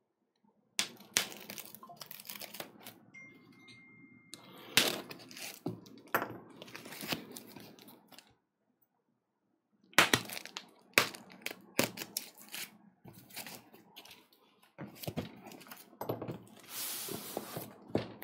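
Packaging being opened: tape picked at and torn, and a white foam packing block handled, giving scattered clicks, knocks and rustles. Near the end there is a longer scraping rub as the foam shell slides off the cardboard box inside.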